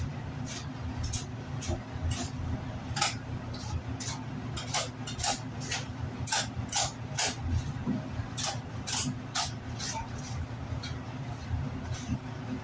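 A butcher's knife cutting and scraping along the bones and meat of a beef hindquarter, in short, sharp, irregular strokes a few a second, over a steady low hum.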